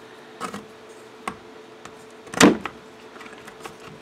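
Plastic clicks and knocks from handling a 12-volt computer fan as it is fitted onto a mounting screw through a modem lid: a few sharp knocks, the loudest about two and a half seconds in, with smaller ticks between. A faint steady hum runs underneath.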